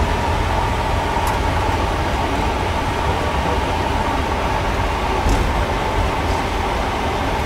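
Boeing 777 flight-deck noise while taxiing: a steady low rumble with a thin steady whine on top, from the engines at idle and the airliner rolling along the taxiway.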